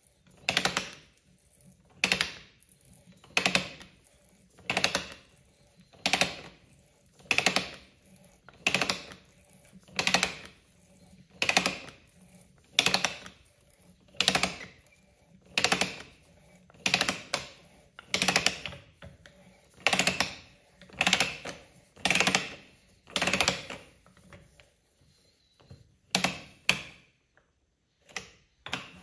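Handmade ratchet tap wrench clicking as it is worked back and forth to tap a thread: a short burst of pawl clicks about every 1.3 seconds, stopping near the end, with two last isolated clicks.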